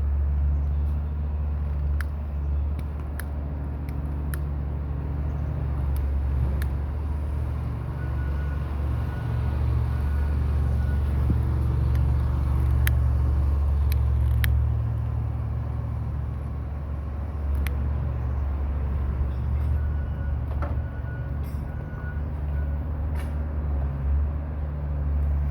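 A steady low engine rumble, like a vehicle idling, that swells and eases, with scattered sharp clicks and taps.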